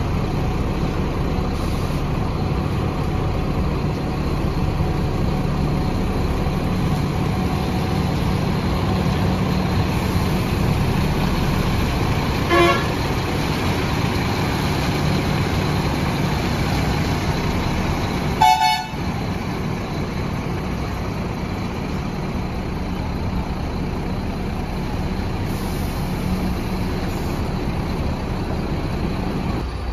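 Volvo B11R coach's six-cylinder diesel engine running steadily at idle. A vehicle horn gives two short toots, about twelve and eighteen seconds in, the second louder.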